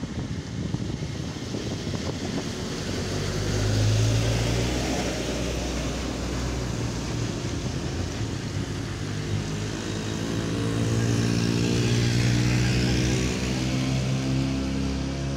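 Large bus engine running as the vehicle passes close by, swelling in loudness about four seconds in and again, longer, around twelve seconds; no horn is sounded.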